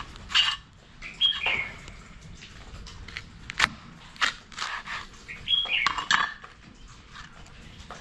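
Kitchen knife cutting a dragon fruit on a plastic cutting board, the blade knocking and tapping on the board several times. A bird gives a short falling call twice, about a second in and again near six seconds.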